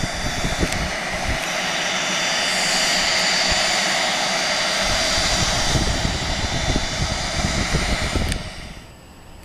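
Business jet taxiing close by: steady jet engine noise with a high whine, swelling in the middle and dropping away suddenly near the end.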